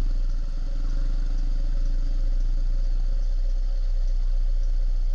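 Motorbike engine idling steadily, a rapid even putter with a low rumble.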